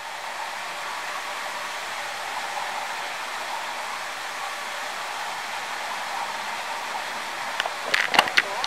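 Stream water rushing past concrete culvert blocks: a steady, even rushing noise. Near the end a few sharp clicks and a brief pitched sound.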